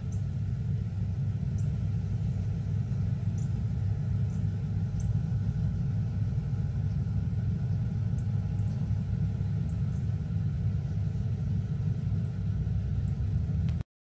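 Steady low rumble with no speech, cutting off abruptly near the end.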